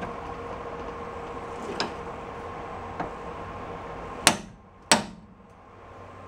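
Hammer striking the drain plug of a VW bus's rear-wheel reduction gear box housing, trying to knock the housing loose: a couple of light taps, then two sharp metal strikes about half a second apart a little past four seconds.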